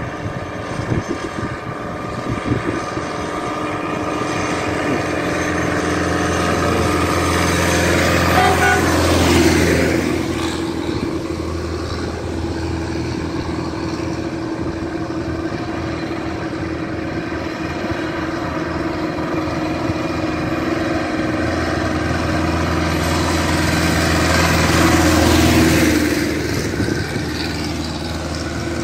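Diesel farm tractors pulling loaded grain trailers driving past on the road, one after the other: the engine note grows louder as each approaches and drops in pitch as it goes by, once about a third of the way in and again near the end.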